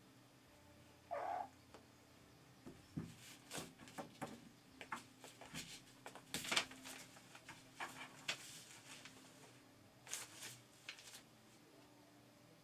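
A kitten gives one short mew about a second in. Then comes a long run of quick, irregular rustling and scratching as kittens paw and scrabble at loose paper sheets and the door.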